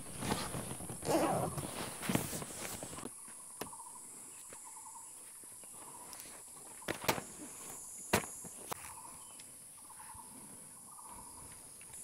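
Forest ambience: a steady high-pitched insect drone with faint, repeated short chirps and a few sharp clicks a little over halfway through. The first three seconds carry louder rustling and handling noise.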